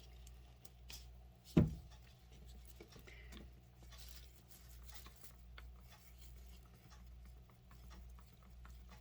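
A single dull thump about one and a half seconds in, then faint scattered clicks and taps of small objects being handled on a table, over a steady low electrical hum.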